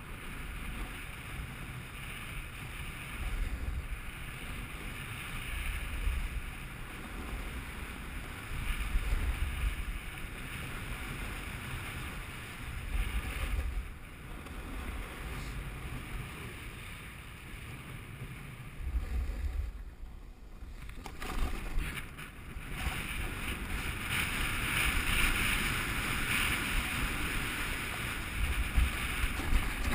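Skis or board sliding fast over groomed snow, a continuous hissing scrape, with wind buffeting the microphone in low gusty rumbles. The hiss drops away briefly about two-thirds of the way through, then comes back louder near the end.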